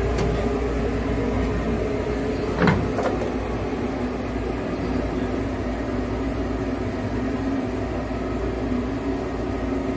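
Steady drone of running machinery, with a single knock a little under three seconds in and a faint click just after, from hands working on the diesel engine's fuel filter mount.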